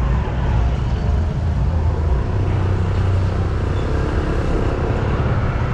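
Street traffic: vehicle engines running past in a steady low rumble.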